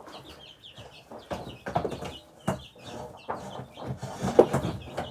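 Baby chicks peeping in a brooder, many short high chirps overlapping. A few knocks and bumps break in, the loudest about four and a half seconds in.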